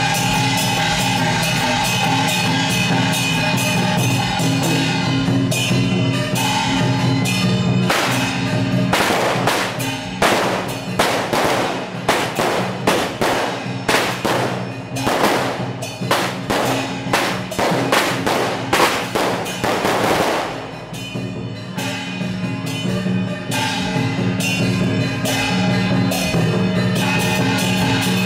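Procession music: sustained steady tones over drums and percussion. From about eight to twenty-one seconds in, a dense, irregular run of sharp, loud crashes sounds over it.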